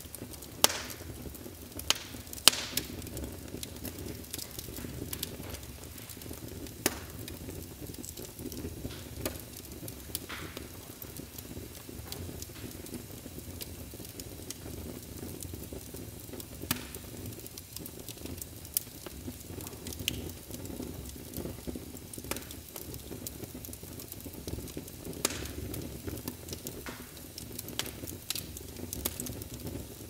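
Fire crackling in a fireplace, with scattered sharp pops over a steady low rumble. The loudest pops come in the first few seconds, and single ones follow every few seconds after that.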